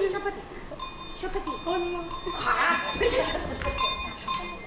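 Small metal bells struck several times, each stroke ringing on at the same few clear pitches, with short vocal sounds from a performer in between.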